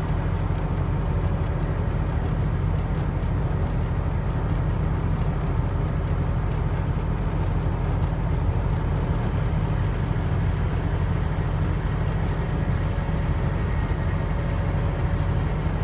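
Steady low engine and road rumble inside a truck's cab while driving at a constant speed.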